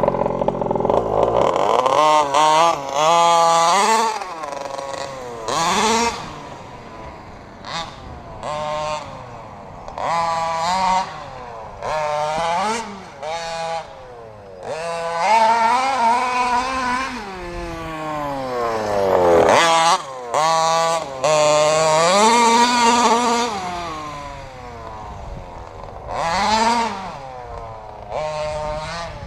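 Losi 5ive-T 1/5-scale RC truck's RCMAX 46cc two-stroke gas engine revving in repeated bursts of throttle, its pitch climbing and then falling with each burst as the truck accelerates and backs off.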